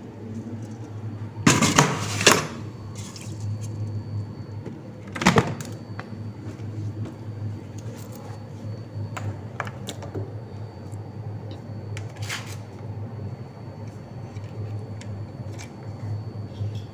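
Rice cooker being handled and set up: clattering and a sharp knock as the pot of washed rice goes into place, then lighter clicks as the power cord is handled at a power strip, over a steady low hum.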